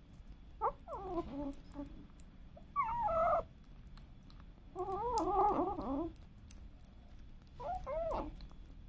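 A kitten mewing in five short, wavering cries while it licks at a sachet of cat treat; the fourth cry is the longest and loudest. Faint wet licking clicks come in between.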